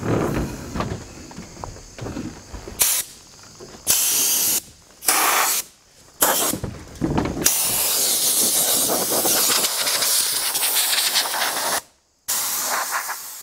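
Compressed air hissing from an air-hose blow gun, blowing out debris in bursts: several short blasts, then one long blast of about five seconds, then another short one near the end.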